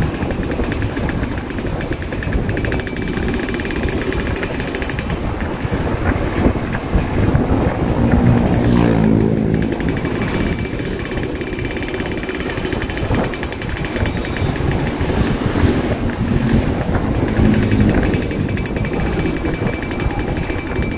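Motorcycle ridden slowly through traffic: its engine running steadily with wind and road noise, the revs rising briefly about eight to nine seconds in.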